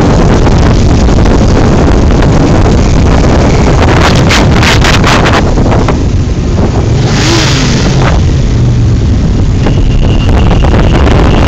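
Loud wind buffeting the microphone on a moving motorcycle, over the running engines of the motorcycles riding in the parade. A faint steady high whistle joins near the end.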